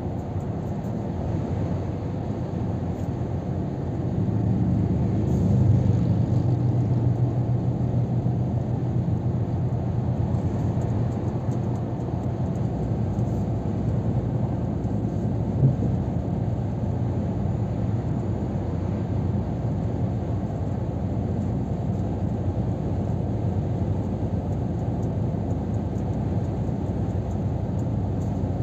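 Scania R500 truck cruising on a motorway, heard from inside the cab: a steady low engine drone mixed with tyre and road noise. The drone grows louder for several seconds from about four seconds in, and a single short knock comes a little past halfway.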